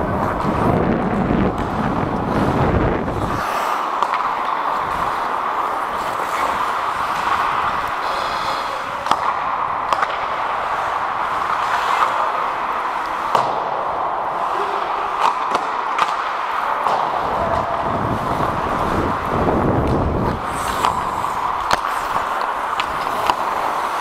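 Ice hockey play heard from on the ice: skate blades scraping and carving the ice, with scattered sharp clacks of sticks and puck. A low rumble joins in for the first few seconds and again a few seconds before the end.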